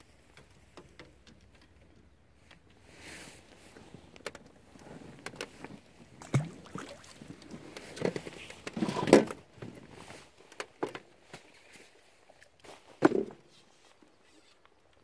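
Close handling noises from an angler moving at the rod rack: clothing rustle and a string of irregular clicks and knocks, with the loudest knocks about nine and thirteen seconds in.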